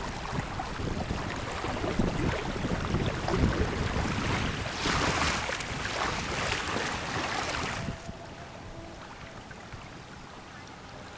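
Wind buffeting the microphone over small waves lapping on a gravel shore, with a brighter hiss of water washing in from about five seconds in. Near eight seconds the sound cuts abruptly to a quieter, steady hush with a faint hum.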